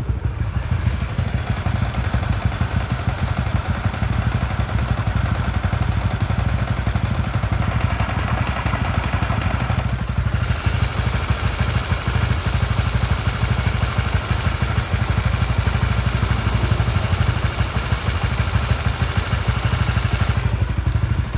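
Warmed-up single-cylinder 150cc-class motorcycle engine idling steadily and smoothly.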